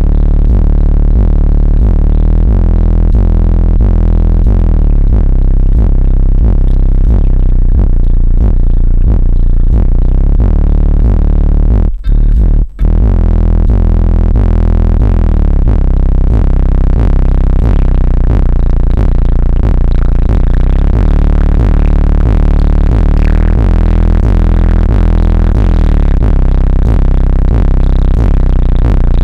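Bass-heavy electronic music played very loud on a car audio system with Skar Audio subwoofers, the subwoofers' deep bass carrying most of the sound. The music cuts out twice, briefly, about twelve seconds in.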